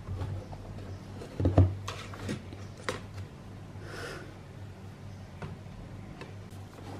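A few light knocks and taps of objects being handled on a desk, the loudest about one and a half seconds in, with a soft rustle around four seconds in, over a steady low electrical hum.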